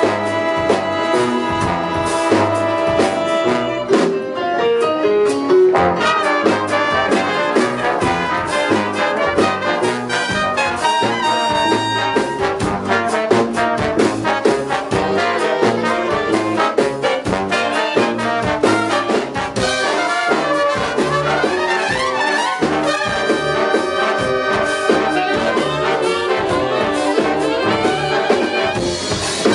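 Live big band playing jazz fusion in 5/4 time: trumpets and trombones sustain chords and play lines over woodwinds, electric guitar, bass and a drum kit keeping a busy beat.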